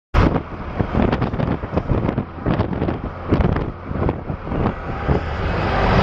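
A car driving along a road, heard from inside the cabin: a low road-and-engine rumble with wind buffeting the microphone in irregular thumps.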